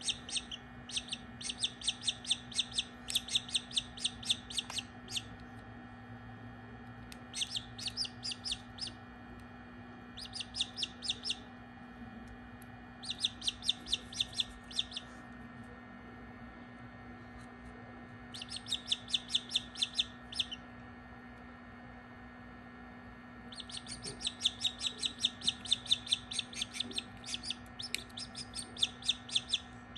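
Newly hatching Australorp chick peeping loudly in runs of rapid, high peeps, several a second, broken by pauses of a few seconds, the longest run near the end. The chick is still half inside a shell it could not break out of, stuck to the membrane. A steady low hum runs underneath.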